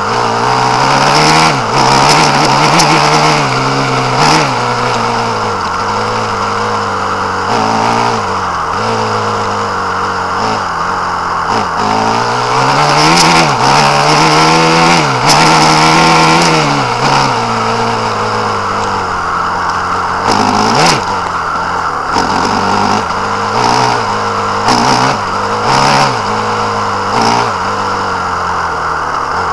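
Small engine of a vehicle driving over rough grass, heard close from an onboard camera, revving up and falling back again and again. Short knocks and rattles from the bumpy ground come through throughout.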